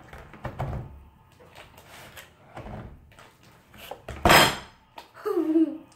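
Hands kneading and slapping thick slime in a large clear bowl, the bowl knocking and thumping against a wooden table in a few irregular hits, the loudest about four seconds in. Near the end comes a short, wavering, falling pitched squeak.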